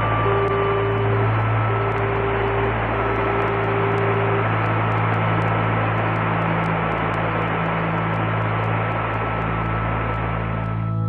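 Portable transistor radio hissing with static, as if tuned between stations, over a low steady hum, with a few steady whistling tones sounding briefly in the first few seconds. The static cuts off near the end.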